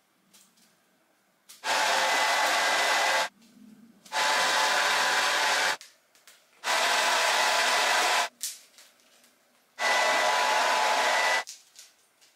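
Hair dryer switched on in four short blasts of about a second and a half each, with brief pauses between them, its fan motor giving a faint whine under the rush of air.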